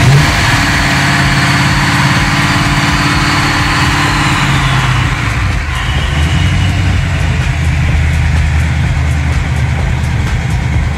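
1988 Mustang GT's 5.0-litre small-block Ford V8, on Holley Terminator X fuel injection with long-tube headers and Mac mufflers, idling just after a cold start. The fast idle drops to a lower, steady idle about five seconds in.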